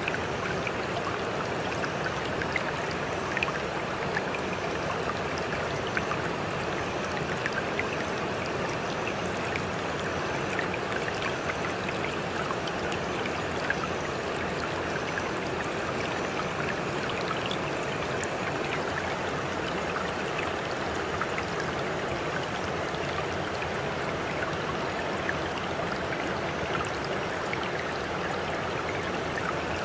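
Steady running-water ambience like a stream: an even rushing with faint scattered drips and ticks.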